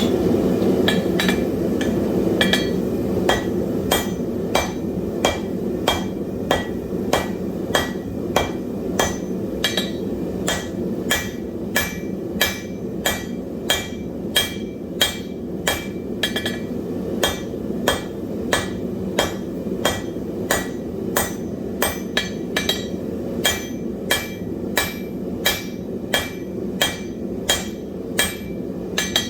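Blacksmith's hand hammer forging hot wrought iron on an anvil: steady, evenly paced ringing blows, about two a second. A steady rushing noise from the lit forge runs underneath.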